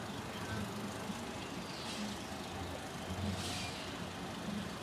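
Portable generator running with a steady low hum, joined by brief hissing rustles about two seconds in and again a little past three seconds.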